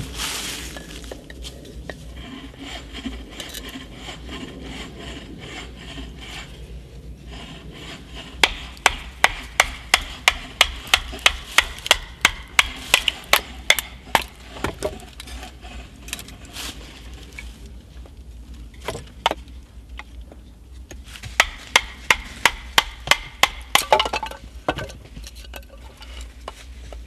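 A knife being batoned through a stick of firewood: a wooden baton knocks on the blade's spine in two quick runs, about three knocks a second, one near the middle and a shorter one near the end. Quieter wood handling and rubbing can be heard between the runs.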